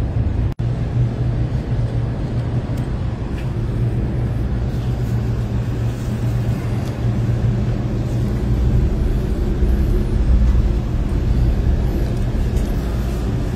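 Steady low rumble and hum of a cable car gondola travelling along its cable, heard from inside the cabin, with a split-second dropout about half a second in.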